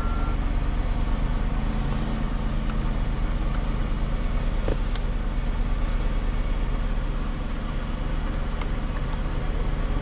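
Buick Regal idling, heard from inside the cabin as a steady low hum, with a few faint clicks as the climate-control panel's buttons are pressed.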